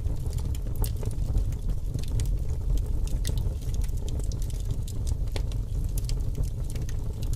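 A bus in motion: a steady low engine and road rumble with scattered clicking rattles.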